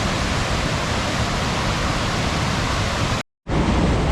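A waterfall, the River Ure pouring steadily down a staircase of rocky steps. About three seconds in, the sound cuts out completely for a moment and comes straight back.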